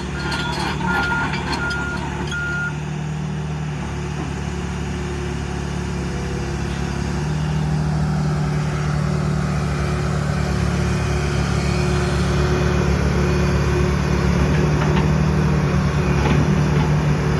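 Diesel engine of a 1992 John Deere 490E excavator running steadily, with an alarm beeping about once a second for the first few seconds.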